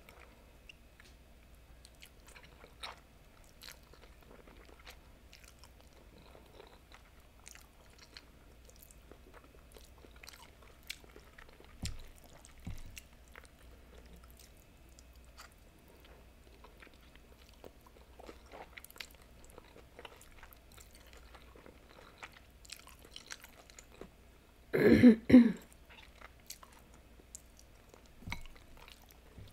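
Close-miked noodle eating: quiet chewing with soft wet mouth clicks and light ticks. About 25 seconds in, a sudden loud, short burst of voice in a few pulses stands out above the eating.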